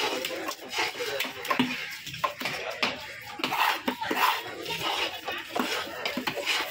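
A large cleaver-like knife cutting a grouper on a wooden log block: a run of irregular sharp knocks and scrapes as the blade goes through flesh and bone and strikes the wood.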